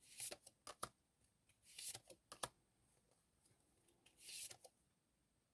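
Tarot cards being handled: three faint, brief swishes of cards sliding, with a few light clicks in between.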